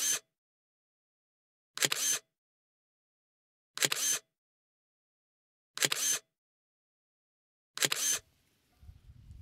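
Single-lens reflex camera shutter clicks, used as a sound effect, fire five times, one every two seconds, with dead silence between them.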